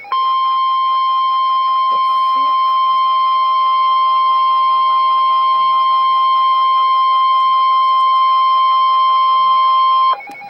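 Emergency Alert System attention signal: the National Weather Service's single steady alert tone at about 1 kHz, loud and unbroken for about ten seconds, cutting off sharply near the end. It announces the severe thunderstorm warning that follows.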